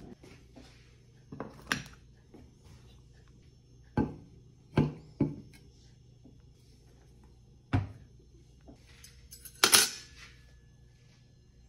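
Tabletop handling knocks as a beer can and a plate are set down on a wooden table, then a metal fork clatters onto a ceramic plate near the end with a short ring.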